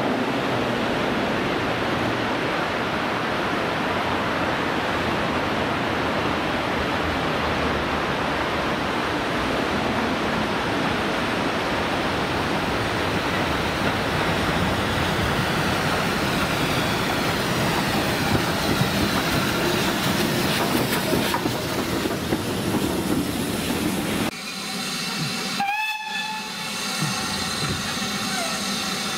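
A steam train running past, heard as a loud continuous rushing noise. About 25 seconds in the sound changes abruptly and a steam locomotive's whistle sounds briefly.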